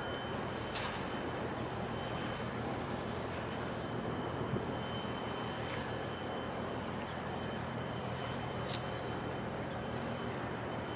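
Steady outdoor rumble and hiss with a low hum underneath, a faint high steady tone, and a few light clicks.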